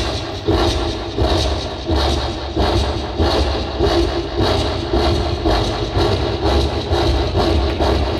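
A man imitating a coal-fired steam train with his voice into a microphone: a steady, rhythmic chugging of puffs, about two a second.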